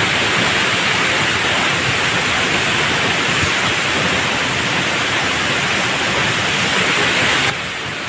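Chinma Falls, a large waterfall, pouring down close by: a loud, steady rush of falling water. About seven and a half seconds in it drops suddenly to a quieter rush.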